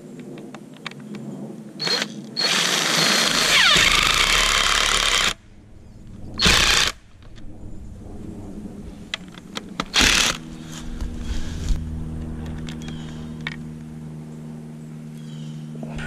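Cordless drill driving screws into wood. It runs for about three seconds with the motor's pitch dropping as the screw bites, then gives two short bursts.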